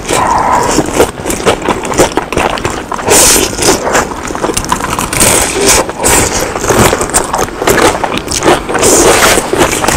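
Close-miked crunching and chewing of deep-fried skewered food, mukbang-style, with repeated crackly crunches through the whole stretch.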